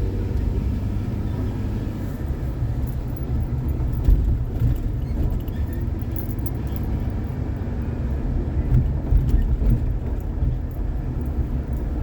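Car driving along city streets: a steady low rumble of engine and tyre noise, with a couple of brief louder bumps about four seconds in and again near nine seconds.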